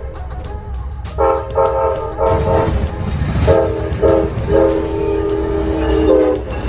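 Train horn sounding in a series of blasts: three short blasts, then two short and a long held one, over a low steady rumble.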